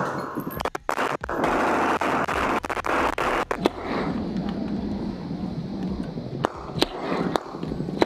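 Rifle gunfire from AR-15-pattern rifles firing blanks: a quick run of shots near the start, then single sharp shots, about five over the last four seconds, over a steady low rumble.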